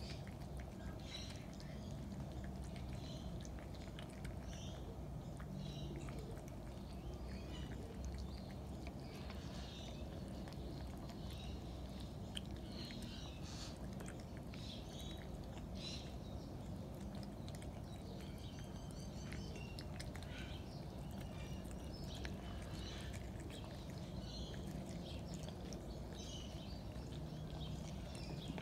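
Two cats eating from a stainless steel bowl: many short, irregular chewing and smacking sounds over a steady low background rumble.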